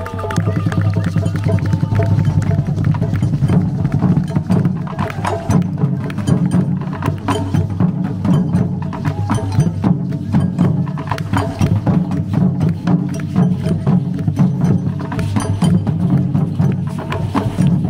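Many drums played together in a fast, steady, driving rhythm, with deep drum strokes under a dense layer of sharp, clicking hits. The drumming comes in all at once and keeps going without a pause.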